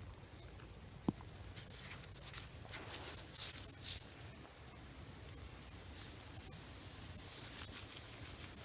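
Gloved hand scraping and clawing through loose soil around a buried glass bottle, with irregular scratching and crumbling dirt, loudest about three to four seconds in. A single short click about a second in.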